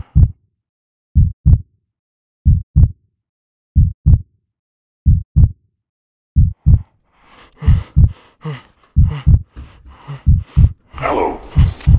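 Heartbeat sound effect: pairs of low lub-dub thumps repeating about every second and a quarter. About halfway through, a hissing noise builds beneath the beats, growing louder near the end.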